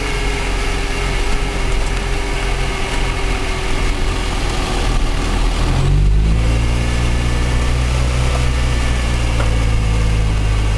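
Land Rover Series engine running steadily, heard from inside the cab while driving in snow. About six seconds in the note changes abruptly to a deeper, steady drone.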